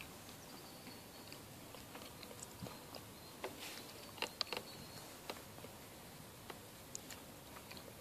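Quiet outdoor background with faint scattered clicks and light crunches, a few of them bunched together about halfway through.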